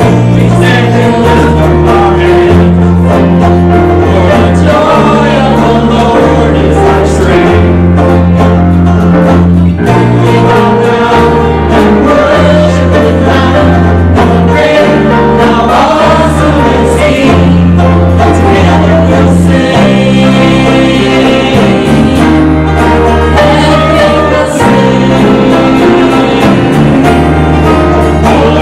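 Church worship band playing a slow worship song with bass and guitar, with voices singing together over it.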